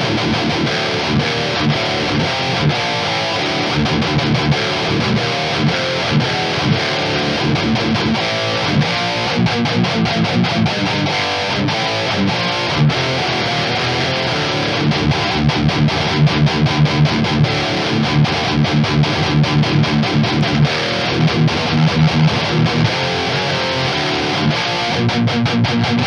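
Schecter ATX V electric guitar with Fishman Fluence Modern pickups, played through an amp-sim plugin's Mesa Boogie Dual Rectifier model: heavily distorted death-metal riffing with fast picking, the attacks coming thicker in the second half.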